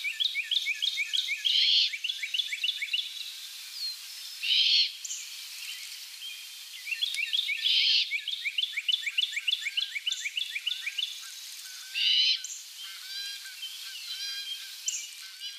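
Great horned owl fledgling giving its raspy, hissing begging screech, six short blasts about three to four seconds apart. Between them a songbird sings runs of quick down-slurred chirps, several a second.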